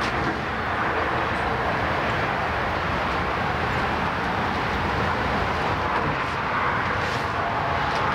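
Steady outdoor background noise, an even rushing hiss and rumble with no distinct events.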